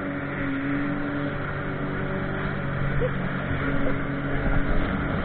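Personal watercraft engine running at a steady high speed, a constant engine tone under the rushing hiss of water spray against the hull.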